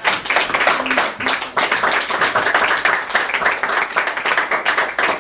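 Audience clapping: many hands applauding together at once, dense and steady, thinning out only after it.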